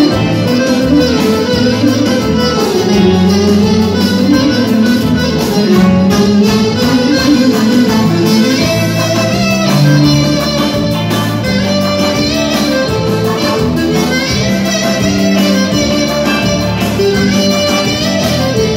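Live band music led by a clarinet playing an ornamented melody, over violin, electric guitar, keyboard and a steady drum beat.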